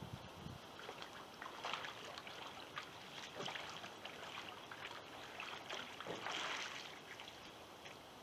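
Pool water splashing and sloshing around a kayak and its wooden Greenland paddle as the paddler capsizes and comes back up in a Greenland roll. There are short splashes a couple of seconds in and again around three seconds, then a longer splash near the end as the boat rights itself.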